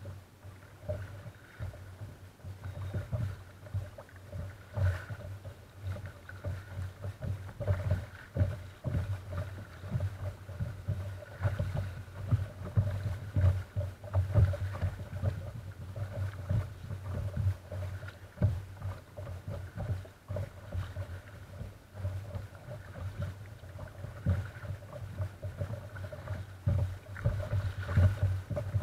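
Sea water slapping and lapping against a paddled kayak's hull, a steady stream of irregular low knocks and splashes.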